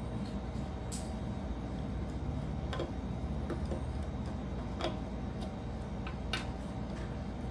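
Plastic Lego pieces clicking now and then as they are handled and pressed together, about six sharp clicks at uneven intervals, over a steady low hum.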